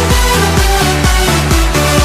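Electronic dance music with a steady four-on-the-floor beat and a pulsing bass line.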